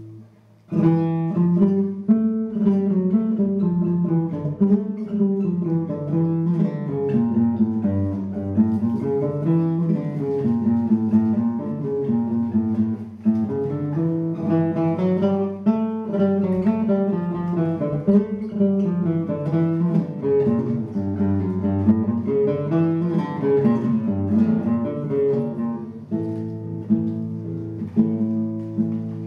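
Classical guitar played solo: a held chord dies away, and after a brief pause a flowing melody over plucked chords starts about a second in. Near the end it settles into longer ringing chords.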